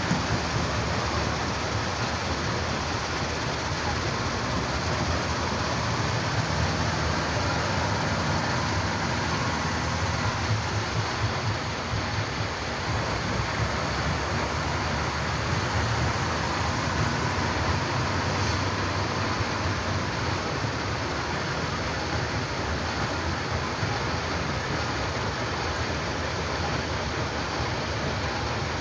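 Heavy diesel construction machinery running steadily: a continuous low engine drone under dense, even mechanical noise.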